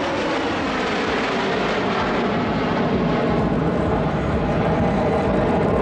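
Steady jet engine noise from a formation of fighter jets flying an aerobatic display overhead.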